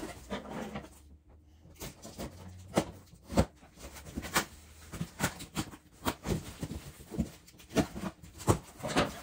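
A cardboard shipping box being opened and handled by hand: irregular taps, scrapes and rustles, a few a second.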